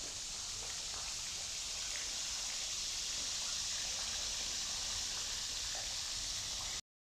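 Steady outdoor ambience: an even high hiss with faint scattered ticks, cutting off suddenly near the end.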